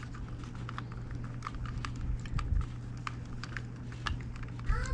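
Irregular light clicks and taps of a screwdriver and small screws on a plastic controller being screwed back together, over a steady low hum.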